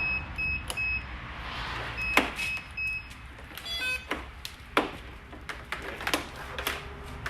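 Electronic beeper sounding two sets of three short, high beeps about two seconds apart, then a quick run of tones, with scattered clicks and knocks of equipment being handled.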